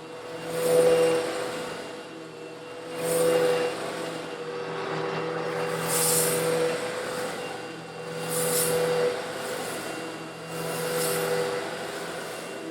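An old Eureka vacuum cleaner running with a steady motor hum while it sucks up coarse stone granules. A hiss and rattle of grit swells and fades about every two and a half seconds as the nozzle passes over them.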